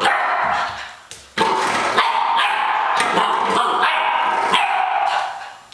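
Dog barking and yipping excitedly in two runs, with a short break about a second in.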